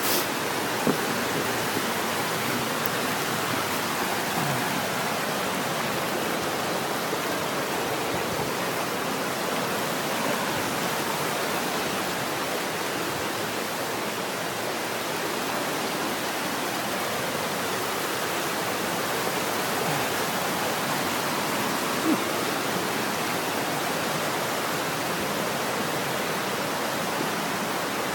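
High Falls waterfall on the Little River: a steady, even rush of falling water.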